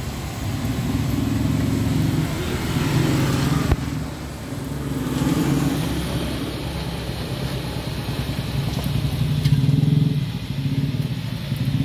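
Motorcycle engines running, the sound swelling and fading several times.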